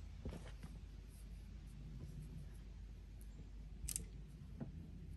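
A few faint clicks and light knocks of wooden boards being handled and set in place, over a steady low rumble.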